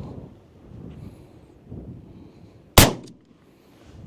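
A single 12-gauge shotgun shot about three seconds in, firing a 3½-inch number 4 birdshot shell, with a short fading tail after the blast.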